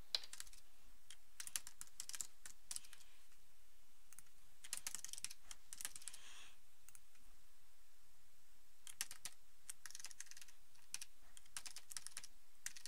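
Typing on a computer keyboard: quick runs of key clicks in several short bursts, with pauses between them.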